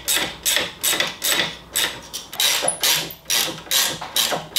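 Hand ratchet wrench worked back and forth in quick, even strokes, about two and a half a second, each back-swing a short burst of pawl clicks, as it tightens a motorcycle floorboard's mounting bolt.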